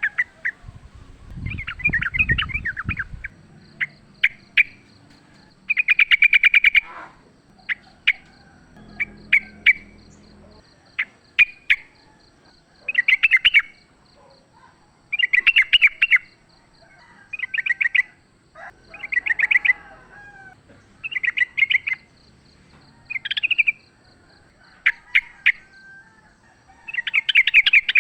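Yellow-vented bulbul (trucukan) singing: repeated short phrases of rapid bubbling notes, one about every one to two seconds. This is the fast 'ropel' style of song, used as a lure for caged birds. A faint steady pulsing high tone sits underneath.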